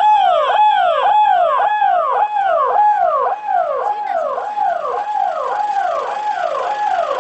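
Electronic siren on a police escort pickup, sounding a fast wail that sweeps up quickly and falls back nearly twice a second, a little quieter in the second half.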